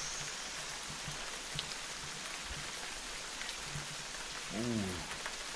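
Steady splashing hiss of a small waterfall pouring down the cliff face beside the river. A man's voice gives a short hum about four and a half seconds in.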